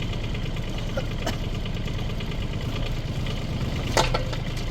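Mini excavator's diesel engine running steadily at idle, with a sharp knock about four seconds in and a fainter one about a second in.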